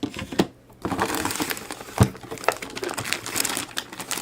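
Plastic packaging crinkling as toy parts are handled and unwrapped, with a few sharp clicks of hard plastic pieces knocking together, the loudest about two seconds in.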